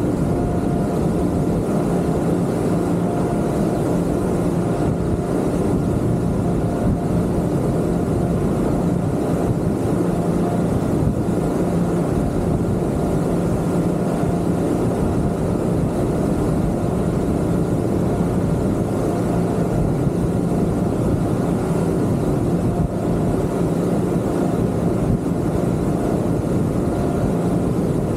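Twin Yamaha 250 outboard motors on a Kingfisher 3025 GFX boat running at a steady speed: an even engine drone under a constant rush of wind and water.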